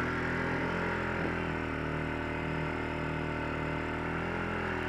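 Honda TRX ATV engine running steadily under a rider on a snowy trail, its pitch rising and falling a little with the throttle.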